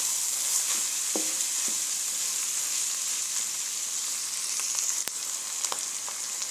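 Minced beef and kachnar (bauhinia) buds sizzling steadily in hot oil in a metal pan while being stirred with a wooden spatula, with a few short knocks of the spatula against the pan. This is the bhuna stage, dry-frying the mince and buds on a medium flame.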